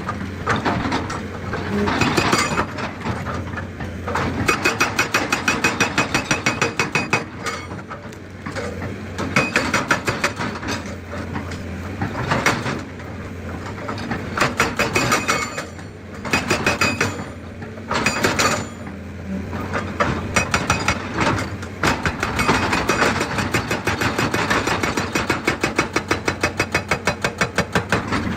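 Excavator-mounted hydraulic breaker hammering rock in runs of rapid, evenly spaced blows, several a second, with short pauses between runs, over the steady running of the excavator's diesel engine.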